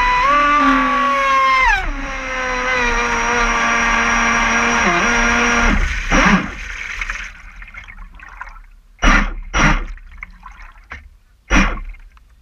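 RC speedboat's motor whining at speed, dropping in pitch about two seconds in and cutting off about six seconds in. Water lapping at the hull follows, with three sharp knocks in the last few seconds.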